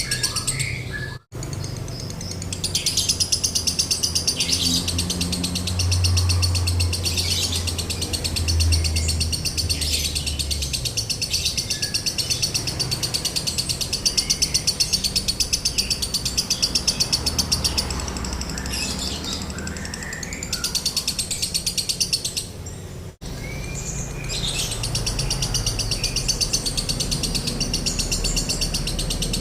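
Lovebird giving long, very fast high-pitched chattering trills ('ngekek'), the continuous 'konslet' style of song, in runs of several seconds. The sound cuts out abruptly for a moment about a second in and again near the end.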